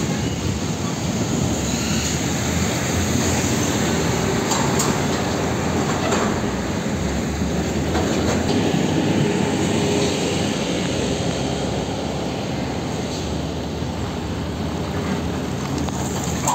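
Heavy diesel trucks and tractor units pulling container trailers driving past close by, a steady traffic noise with no break.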